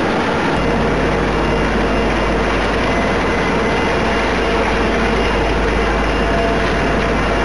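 Heavy asphalt-paving machinery running steadily, a dense engine noise with a steady whine through it. A low hum sets in about half a second in.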